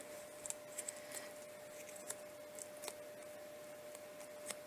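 Faint handling sounds of paper craft pieces on a tabletop: scattered soft clicks and rustles, over a faint steady hum.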